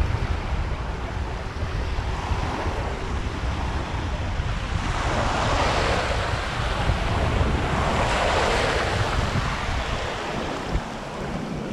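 Ocean surf washing, rising to two rushes of water about five and eight seconds in, over a steady low rumble of wind on the microphone.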